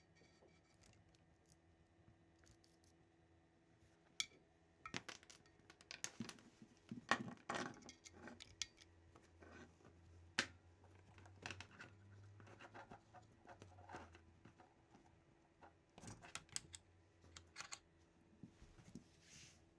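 Quiet handling of small hard objects and packaging: scattered clicks, taps and short scrapes at irregular intervals, busiest in the first half and again near the end.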